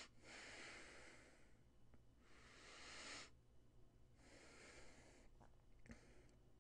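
Faint breathing close to a microphone: three breaths of about a second each, with a few faint clicks near the end.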